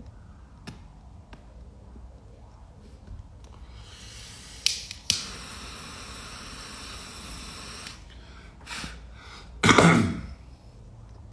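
Butane jet torch lighter clicked on twice and burning with a steady hiss for about four seconds while relighting a cigar. Near the end comes a loud, short rush of air lasting about half a second.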